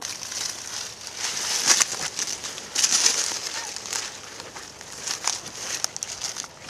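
Close crackling rustle of dry brush and leaves, with many small sharp snaps, louder for a moment about two and three seconds in.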